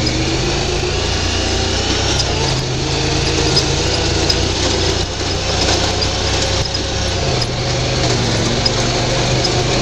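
A UTV's engine running as it drives over rough ground. Its note shifts as the engine speed changes a couple of times, and small knocks and rattles come through.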